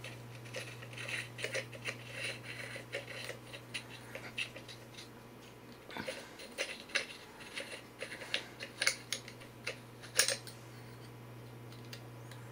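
Fingers unscrewing the plastic reflector cone from an SSC P7 dive torch head, giving irregular small clicks and scrapes, with a few sharper ticks in the second half. A steady low hum runs underneath.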